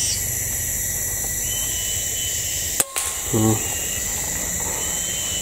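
A single sharp shot from a scoped air rifle, just under three seconds in, over a steady drone of forest insects.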